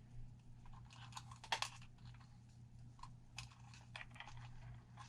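Faint, irregular clicks and crinkles of hands handling and rearranging wires on an RC truck chassis, with a steady low hum underneath.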